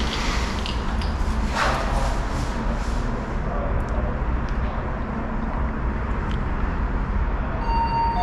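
Steady low rumble while the elevator descends toward the floor. Near the end a single clear electronic chime note starts, the elevator's signal tone.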